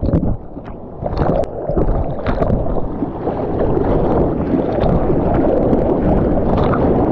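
Rushing, sloshing water and wind on the microphone, with a few short splashes, as a camera rides through the surf.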